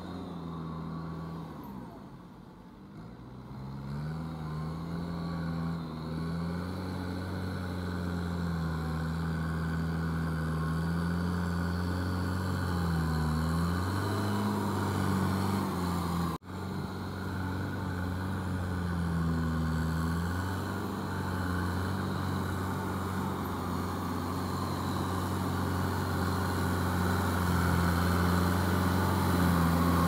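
Kubota M6240SU tractor's diesel engine running under load while it tills a flooded paddy field, its pitch wavering slightly as the load changes. It is quieter a couple of seconds in, breaks off for an instant about halfway through, and grows louder toward the end as the tractor comes close.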